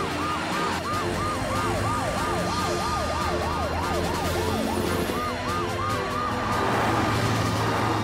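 Cartoon emergency-vehicle sirens, two or more wailing together: one sweeps quickly up and down, about three times a second, and a higher one rises and holds. A steady low drone runs under them.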